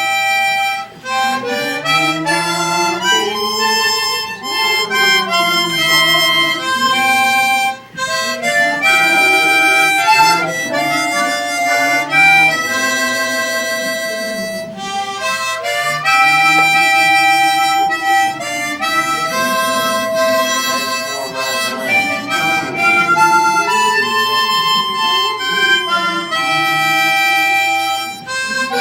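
Harmonica playing a melody of held notes, with a couple of brief breaks between phrases.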